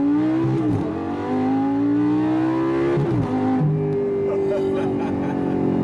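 Lamborghini engine under full-throttle acceleration in Corsa mode, the revs climbing hard through the gears with two quick upshifts, about a second in and about three seconds in, each followed by the pitch rising again.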